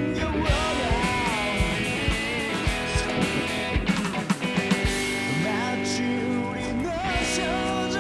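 Background rock music: electric guitar, drums and a male singer.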